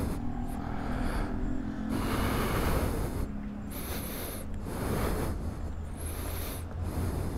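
Suzuki GSX-R1000 K8's inline-four engine running at low revs, with rushes of air noise on the microphone coming and going every second or so.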